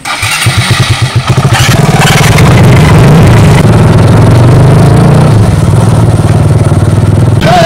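Small motorcycle engines starting up and revving as the bikes pull away. The low firing pulses quicken over the first second or two, then settle into a steady, loud engine note.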